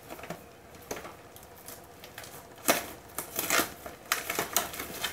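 Cellophane shrink-wrap crinkling and tearing as it is peeled off a small cardboard card box, in uneven spells of crackling, loudest a little past halfway.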